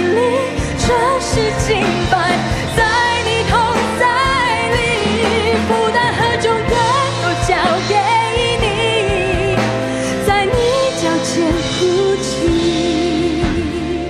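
A Christian worship song sung in Mandarin: a singing voice with vibrato over a steady instrumental backing.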